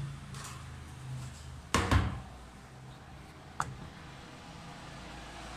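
Hard plastic case of a cordless screwdriver kit being handled and knocked down onto a table, one loud double knock about two seconds in, then a single sharp click a little later.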